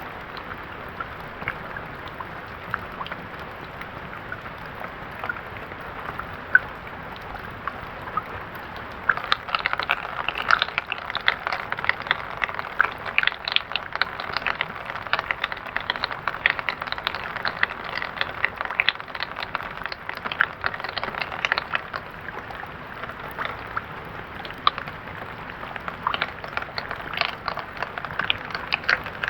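Rain falling: a steady hiss with scattered drop ticks, turning heavier with many drops hitting from about nine seconds in.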